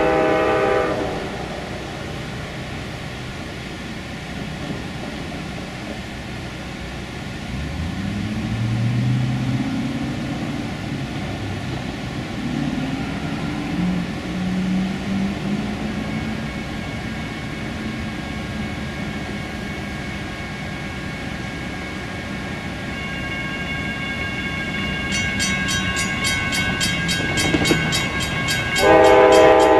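Approaching passenger-train locomotives sounding their horn: the chord cuts off about a second in. A low diesel rumble follows and slowly grows as the train nears, and the horn sounds again, loudly, near the end.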